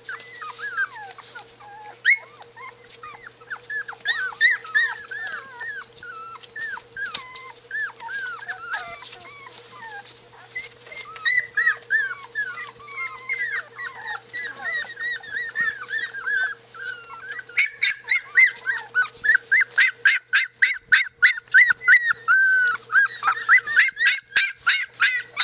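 A litter of 20-day-old Australian Shepherd puppies whining and squeaking in short, high-pitched, overlapping calls. About two-thirds of the way in, the calls turn into a fast run of loud yips, about four a second.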